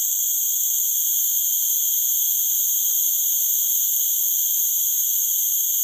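Loud, steady chorus of forest insects: a shrill drone that holds unbroken at one level.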